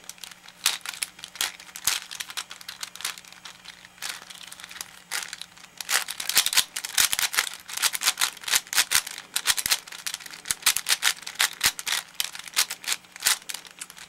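A V-Cube 5 (5x5 puzzle cube) being turned by hand: rapid runs of plastic clicking and rattling as its layers turn, coming in bursts with short pauses between, busiest in the middle.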